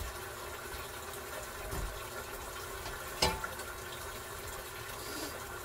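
Water running steadily with a faint hum under it, and one sharp clack about three seconds in.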